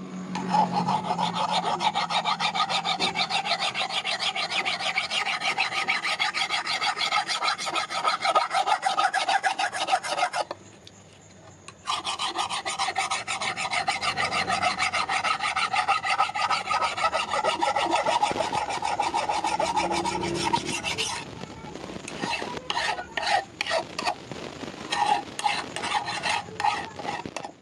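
A round file rasping fast and continuously against the edge of a large curved steel knife blade, sharpening it. The filing stops for about a second and a half roughly ten seconds in, then resumes. In the last several seconds it breaks into slower, separate strokes.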